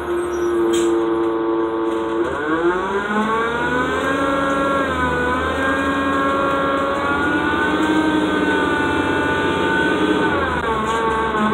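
Cummins ISL diesel engine of a 2007 Gillig Low Floor bus, heard from inside the cabin, with its odd 'funky' tone from an engine fault. It holds steady at first, climbs in pitch as the bus pulls ahead from about two seconds in, dips briefly around five seconds in, and falls off near the end.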